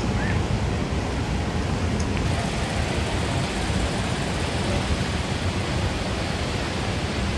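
Steady roar of Niagara Falls' rushing water, with gusty wind noise on the microphone.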